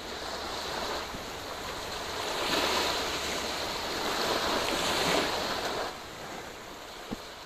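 Small waves washing onto a sandy beach. The wash swells louder twice in the middle and eases off near the end.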